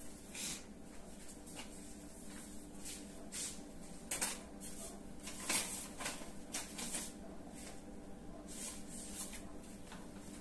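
Faint, scattered clicks and rustles of a person rummaging for a sheet of paper, with a steady low hum underneath.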